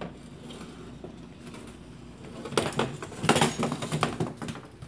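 Folding baby saucer seat dragged across a wooden floor by a toddler, its metal frame scraping and rattling. It is a rough, uneven scrape that starts about halfway through and stops shortly before the end.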